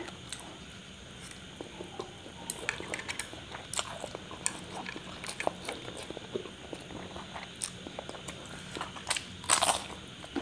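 Close-miked eating of spicy instant noodles: slurping and chewing, with many small wet mouth clicks and crackles. A louder crunchy bite, of raw cucumber, comes near the end.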